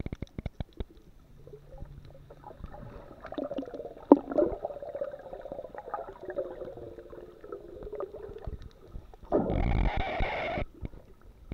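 Muffled underwater sound from a camera held below the surface: gurgling and scattered clicks, and a faint wavering tone through the middle. A louder rush of water lasts about a second near the end.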